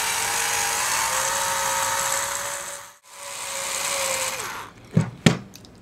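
Power drill-driver running to back out the screws of an impeller pump's head. It makes one run of about three seconds with a steady whine, stops briefly, then runs again more briefly. Two sharp clicks come near the end.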